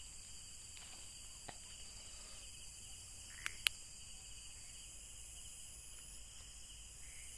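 Night chorus of crickets and other insects trilling steadily, with two sharp clicks close together about three and a half seconds in.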